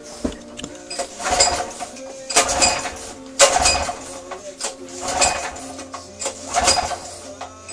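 Honda GX200 single-cylinder engine being pull-started by its recoil starter, several pulls about a second apart, each a short rattling crank that does not catch into a steady run.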